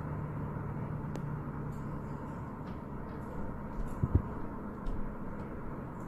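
Phone recording of the mysterious 'sky trumpet' sound: a faint, steady low hum over a constant outdoor background rumble, of unknown origin. The hum stops about two seconds in, and a couple of low thumps follow near the four-second mark.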